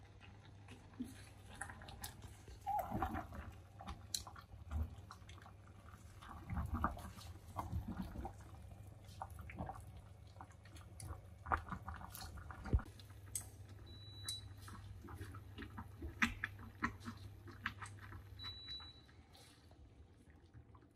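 Light knocks and clicks of wooden chopsticks and a steel pot lid as herbs are stirred in a pot of boiling water, over a low steady hum. Two short high beeps come in the second half, and the hum stops soon after the second.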